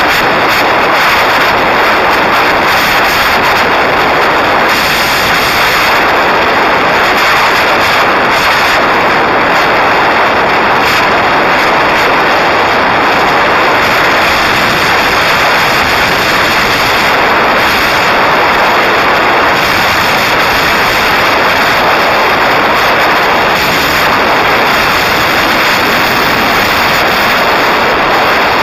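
Loud, steady rush of wind on the microphone of a camera mounted outside a moving car, an even noise that covers any engine or tyre sound.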